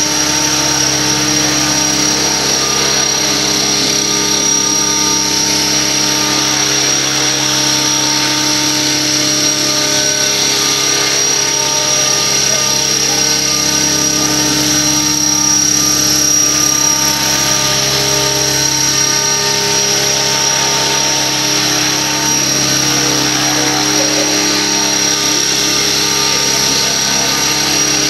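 Radio-controlled Align T-Rex 600 model helicopter in an Airwolf scale body flying, its rotors and drivetrain giving a steady whir with a high steady whine over it.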